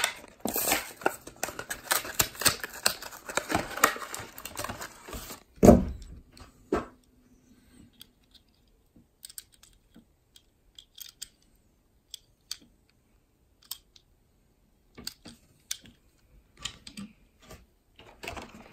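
Clear plastic blister of a Hot Wheels package crackling and clicking as it is torn open from its card, then a single loud thump. After that come scattered light clicks as the loose die-cast car is handled.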